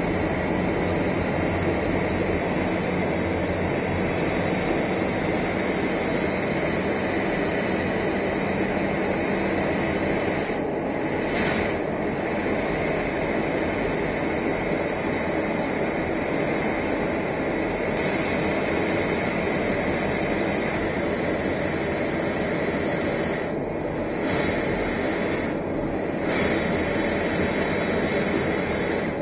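Steady jet aircraft noise, engine and rushing air, heard from aboard an aircraft flying in formation. The upper hiss dips briefly a few times.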